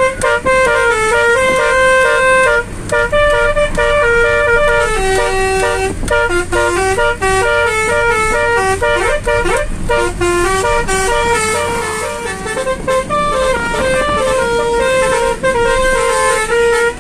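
Basuri musical air horns playing a tune note by note, keyed from a melodica keyboard, over the steady hum of the car's engine and road noise.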